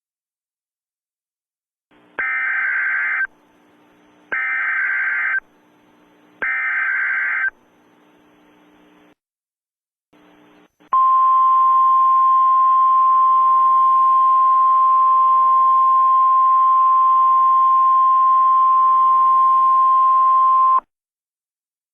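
Emergency Alert System header: three short bursts of warbling data tones, each about a second long with a second's gap, then a steady single-pitch attention tone held for about ten seconds.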